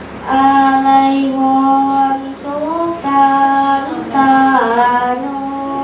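A young girl singing slow, long-held notes, three sustained notes with pitch slides between them.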